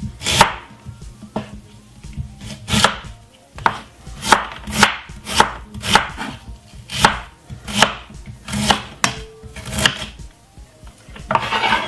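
Kitchen knife chopping a white onion on a cutting board: a run of sharp strokes, about one to two a second, with a longer, rougher noise near the end.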